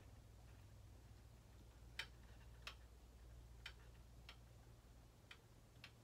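Near silence with a faint steady low hum and about six faint, irregular clicks from a Handy Quilter longarm quilting machine's mechanism as it is turned over slowly by hand to set the needle at its lowest point for a timing check.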